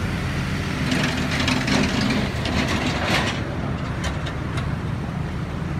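Outdoor city ambience dominated by a steady low rumble of road traffic. A louder rush of noise swells from about one to three seconds in, and a few sharp clicks follow around four seconds in.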